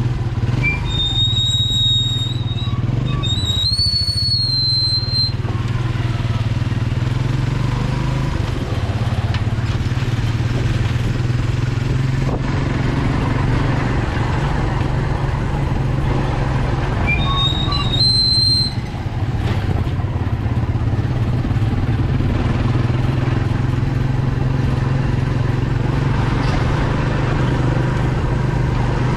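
Motorcycle engine of a motorcycle-and-sidecar tricycle running steadily under way, with road noise. A brief high whistling tone sounds twice, about a second in and again near the middle.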